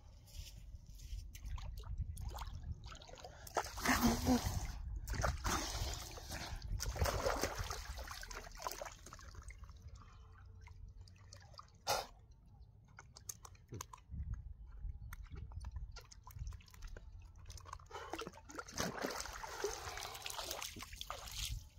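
Sea water sloshing and splashing in several surges: the loudest come about four and seven seconds in and again near the end. There is a sharp click about twelve seconds in.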